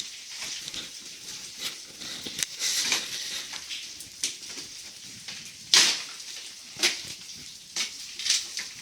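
Footsteps and scrambling on loose rock, an irregular run of crunches, scrapes and knocks, the loudest crack about six seconds in.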